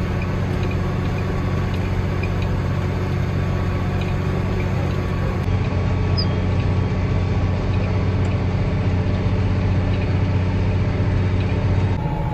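Case IH Magnum tractor's diesel engine running steadily under load, heard from inside the cab as it pulls a silage box beside a forage harvester.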